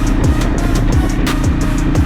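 Background music with a steady beat of deep kick drums falling in pitch, about two a second, with hi-hat ticks and a stepping synth melody.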